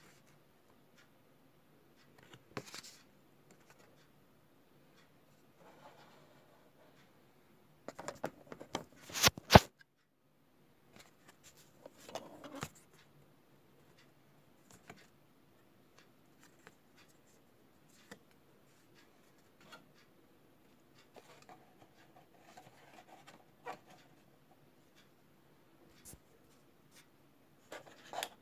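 Handling noise: scattered rustles, scrapes and soft clicks as things are moved about by hand. A couple of sharp clicks about nine seconds in are the loudest sounds.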